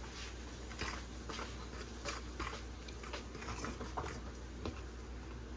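Faint, irregular light clicks and scrapes of a fork and kitchen utensils being handled.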